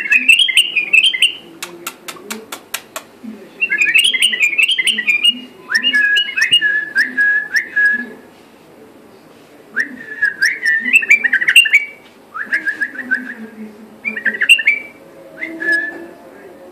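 A bulbul singing in short phrases of quick, warbling whistles, about seven phrases of one to two seconds each with pauses between them. A run of sharp clicks comes about two seconds in.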